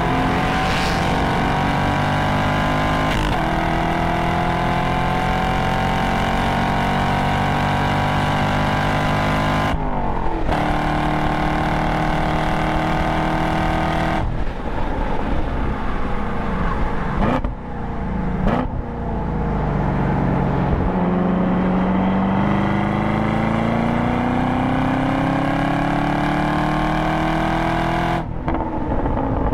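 Stock 6.2-litre LT1 V8 of a Camaro SS 1LE at full throttle, heard from inside the cabin. It climbs in pitch through the six-speed manual's gears with two upshifts, about 3 and 10 seconds in. Midway it lifts for braking, with two quick throttle blips on the downshifts, then pulls hard again and lifts near the end.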